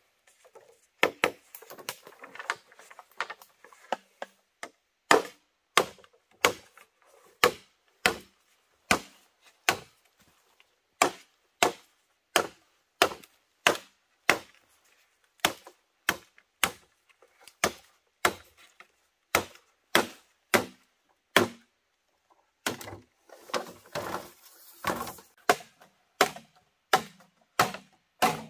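Repeated chopping of wood with a bladed tool: a steady series of sharp chops, roughly one every 0.7 seconds, with lighter, irregular knocks at the start and a quicker flurry of cuts near the end.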